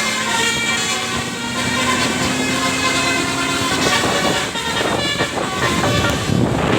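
Telolet bus horns: multi-tone air horns on a bus sounding a quick run of changing notes, with a steady low tone held under them for about the first four seconds.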